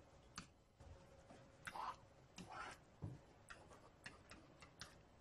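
Near silence broken by faint, irregularly spaced clicks and taps, about a dozen, with a few soft scuffs, from a pen drawing graph axes.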